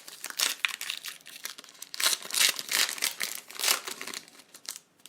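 Wrappers of 2019 Select AFL Dominance trading-card packs crinkling and tearing as the packs are ripped open. The rustling comes in irregular bursts and is busiest about two to four seconds in.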